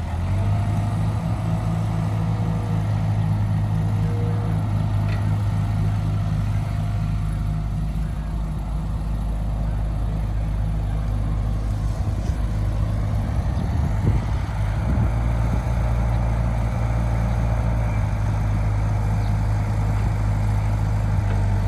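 A heavy diesel engine running steadily, an even, deep drone.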